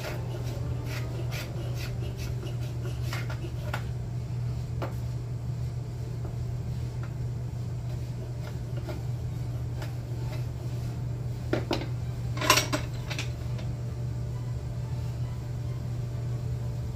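Light clinks and knocks of hand tools being handled, with a louder cluster of sharp knocks about twelve seconds in, over a steady low hum.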